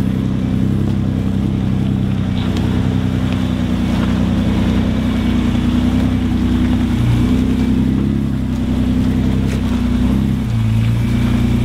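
Nissan Patrol 4WD's engine running at low, steady revs as the truck crawls down over rock slabs, with small dips and rises in pitch about seven and ten seconds in.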